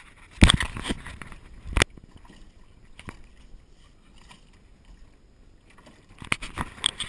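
Sea water splashing and slapping against the side of a small aluminum jon boat close to the microphone, in bursts about half a second in and again near the end, with a sharp knock on the hull a little under two seconds in and a lighter click about a second later.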